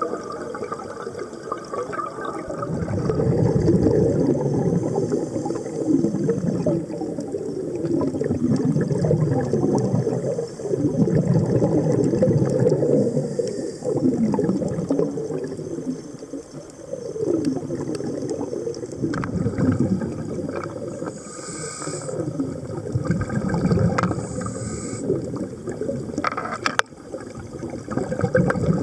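A scuba diver's exhaled bubbles from the regulator, gurgling and rushing past the underwater camera in swells every few seconds, with a few sharp clicks in the second half.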